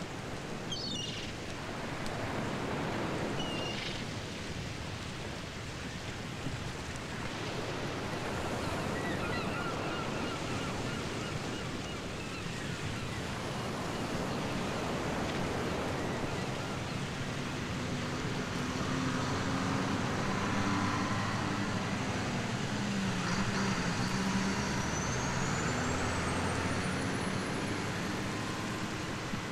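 Steady seaside ambience: a constant wash of noise with road traffic from the seafront. In the second half a vehicle engine runs past, its pitch sagging and rising. Near the end a faint high whistle climbs in pitch.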